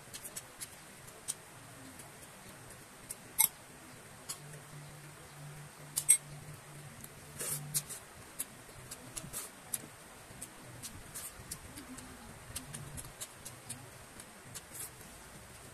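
Close-up eating sounds of someone chewing and eating with his hands: scattered sharp mouth clicks and smacks, two louder ones a few seconds apart near the middle, over a faint low hum.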